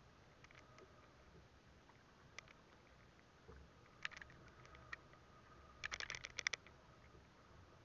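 Mostly quiet, broken by light clicks and taps from a fishing hand line and tackle being handled, with a quick run of clicks about six seconds in, the loudest.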